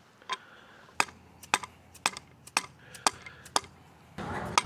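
A dead blow hammer tapping a 5/8 deep socket to drive the washers out of a Harley touring brake arm: a steady series of sharp taps, about two a second.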